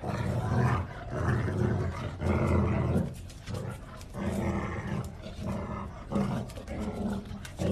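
Cane Corsos growling in play while tugging a rope toy between them, a series of low rough growls, each under a second long, with short breaks between.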